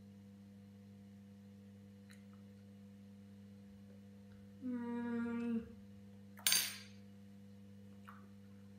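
A boy's closed-mouth "mmm" of pleasure while eating, held steady for about a second, followed a moment later by a short breathy exhale. A steady low electrical hum runs underneath, with a couple of faint spoon clicks.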